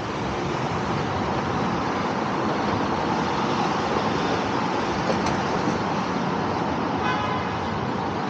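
Downtown street traffic: cars passing through an intersection, a steady wash of road noise. A brief high tone sounds about seven seconds in.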